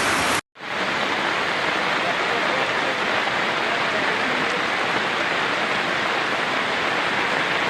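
Steady, loud rush of heavy rain and flowing floodwater, broken by a moment of dead silence about half a second in.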